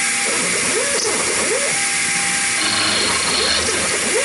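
A Taig CNC mill's end mill cutting a square hole into a cast-iron shaper clapper on its final pass near an inch deep. Over a steady hiss, the mill whines in short sweeps that rise and fall in pitch, coming in pairs every second or two.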